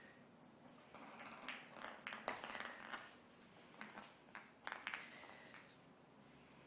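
Small Christmas bauble clinking and rattling in irregular bursts against a tile floor as a ferret carries and pushes it about.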